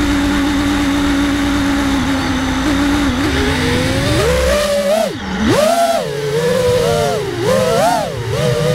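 FPV quadcopter's brushless motors and propellers: a steady whine while armed at idle on the ground, then about three seconds in the pitch climbs as it throttles up for takeoff. After that it swings up and down with the throttle punches of the flight.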